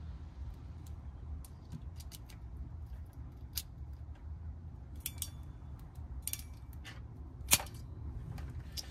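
Deutsch pin crimp tool being handled and closed on terminal pins: a scattering of small sharp clicks and ticks, with one louder click near the end.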